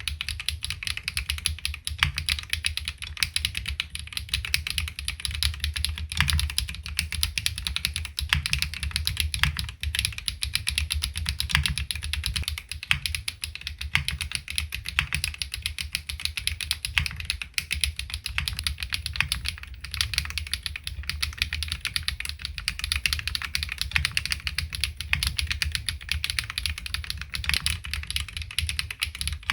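Rapid, continuous typing on a LINWORKS ORCA65 65% bottom-mount custom mechanical keyboard fitted with HMX Duck Duck linear switches on a PC plate with no foam, giving a dense, unbroken run of keystroke clacks.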